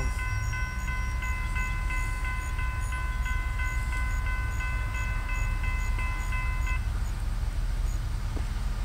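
Railroad grade-crossing warning bell ringing steady and regular as the gate arms rise, stopping about seven seconds in. A steady low rumble runs underneath.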